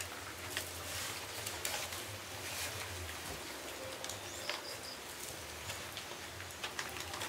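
Paper and plastic food wrappings rustling and crackling in short bursts as several people eat with their hands. A bird chirps briefly, three quick high notes, about four and a half seconds in.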